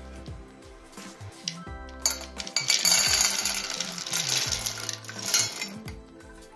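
Frozen blackcurrants tipped into a stainless steel saucepan, clattering hard against the metal from about two seconds in until near the end. Soft background music plays underneath.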